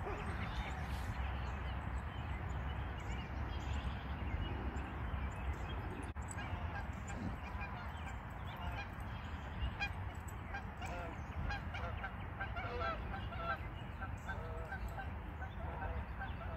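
Many short, distant honking bird calls, more frequent from about six seconds in, over a steady low rumble.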